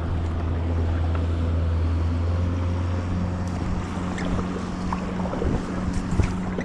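A steady low hum from a motor, with light clicks and a faint wash of water sounds over it.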